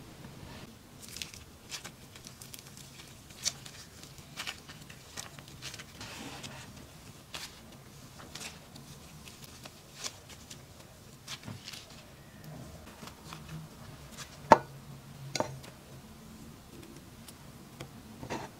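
Caviar slime and soft clay being squeezed and torn apart by hand, giving irregular crackles, squishes and sharp pops, one pop a little past the middle louder than the rest.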